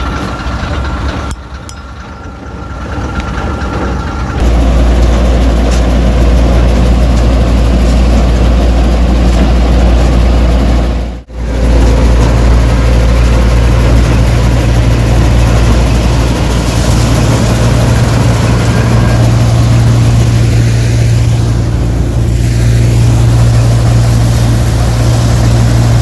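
Punni combine harvester's diesel engine and machinery running close by as it moves into the crop and cuts soybeans: a steady low hum that becomes much louder about four seconds in, with a brief drop-out about eleven seconds in.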